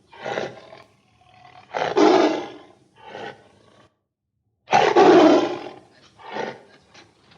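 A large animal's loud calls: two long calls about three seconds apart, with shorter, weaker ones between and after them.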